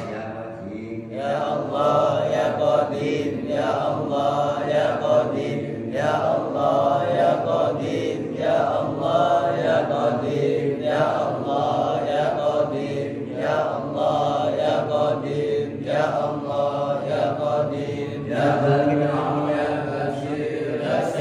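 A man chanting Quran recitation into a microphone in long melodic phrases, with a short breath pause about every two to two and a half seconds.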